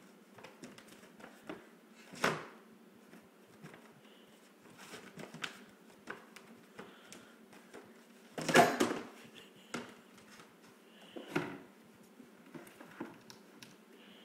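Yellow plastic tub knocking and scraping on a hardwood floor as a toddler stands and shifts in it: scattered small bumps and scuffs, with three louder knocks about two, eight and a half, and eleven seconds in, the middle one the loudest and longest.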